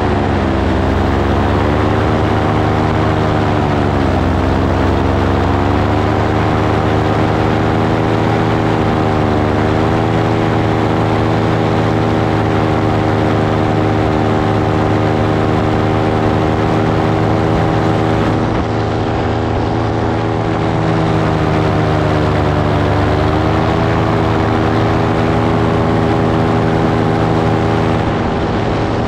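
Small propeller engine of a light aircraft running steadily in flight, its pitch dipping and recovering a few times.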